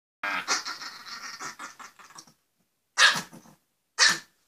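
Small Yorkshire terrier–Chihuahua cross snarling for about two seconds, then two sharp barks about a second apart: an aggressive warning at a hand held near it.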